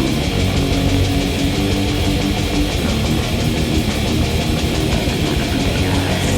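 Lo-fi black metal demo recording: distorted electric guitar played over fast, steady drumming, dense and loud throughout.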